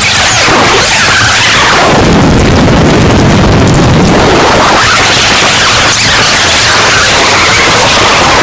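Turntable noise improvisation: a loud, dense wall of distorted noise from vinyl turntables played through a mixer, with sweeping glides up and down in pitch recurring every second or so.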